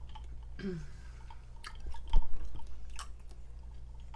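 Close-miked mouth sounds of a person chewing and swallowing while sipping iced soda from a glass mason jar, with a short falling hum near the start and a few sharp clicks, the loudest about two seconds in.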